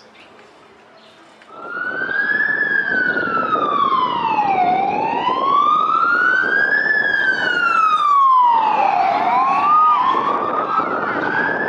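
Ambulance siren wailing: a slow rise and fall in pitch that repeats about every four seconds. It starts loudly about a second and a half in, with a short upward chirp about nine and a half seconds in.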